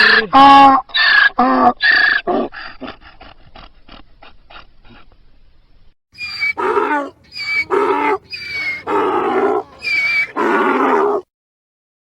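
Donkey braying: a run of hee-haws that grow shorter and fade away over the first five seconds, then, after a short gap, another loud bray of alternating high and low hee-haws that cuts off abruptly about a second before the end.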